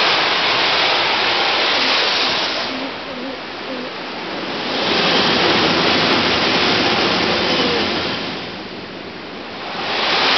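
Oscillating-water-column wave power plant's air turbine roaring as waves drive air through it: a rushing roar that swells and fades with the waves, loud at first, easing about three seconds in, building again around five seconds, easing near nine seconds and rising again at the end.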